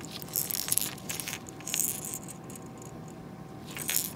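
Light metallic clicks and jingles from a painted crankbait being handled and turned over in a gloved hand, its treble hooks and split rings clinking, in a few short clusters, the last near the end.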